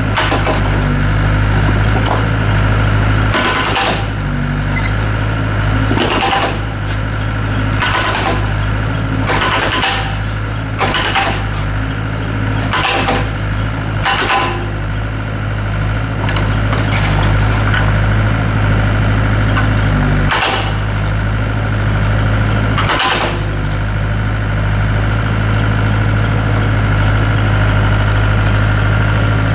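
Diesel engine of a Doosan DX55W wheeled excavator running steadily as the arm and hydraulic breaker are moved into place over concrete slabs. About ten short, sharp noises come at irregular intervals, most of them in the first two-thirds.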